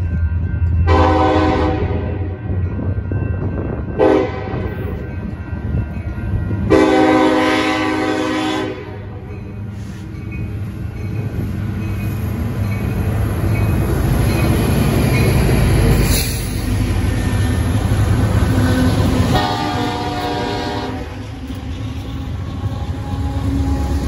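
Freight train's diesel locomotives sounding the horn for a grade crossing as they approach and pass: a long blast, a short one, a longer one, and another long blast near the end. Underneath is the steady rumble of the engines, followed by the freight cars rolling by on the rails.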